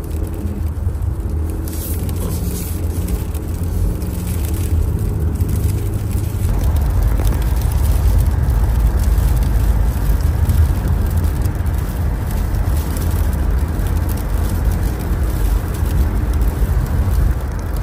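Car driving, heard from inside the cabin: a steady low engine and road rumble that grows fuller and a little louder about six seconds in.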